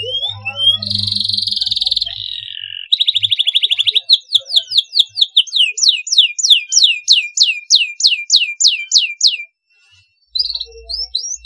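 Domestic canary singing: a buzzy trill and a fast rattling trill, then a long run of repeated down-slurred whistled notes, about three a second. The song breaks off briefly near the end and resumes with short rising notes.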